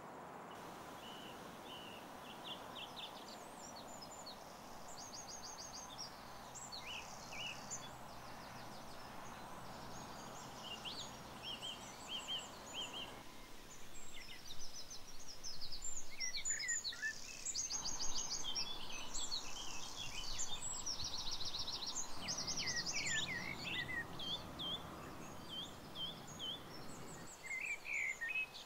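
Several birds singing and calling: rapid high trills and short chirps from different birds, overlapping, over a steady outdoor background hiss.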